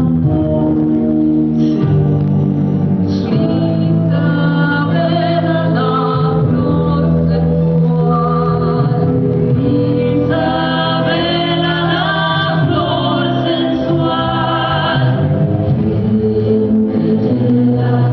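Musical-theatre number: a chorus of voices singing over instrumental accompaniment.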